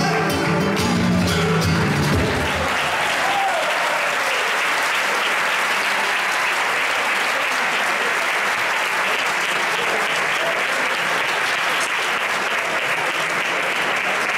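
A flamenco song with guitar ends about two and a half seconds in, and the audience breaks into long, steady applause.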